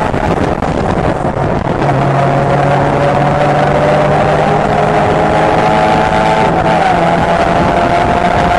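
Mazda MX-5 race car's four-cylinder engine at full throttle, heard from inside the cockpit over wind and road noise. Its pitch climbs slowly, then drops sharply about six and a half seconds in as it shifts up, and climbs again.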